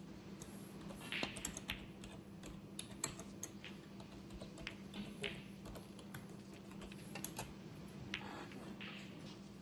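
Typing on a computer keyboard: irregular clusters of key clicks over a faint steady hum.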